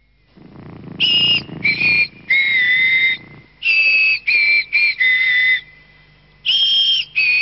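A tune whistled in clear, held notes, about nine of them with short gaps between, some sliding slightly up or down in pitch, and a short pause about two-thirds of the way through.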